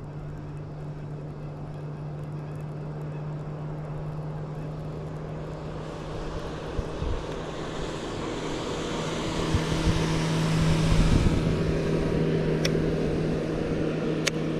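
Motorboat engine running steadily as the boat passes, growing louder from about halfway through and loudest near the end. Two sharp clicks near the end.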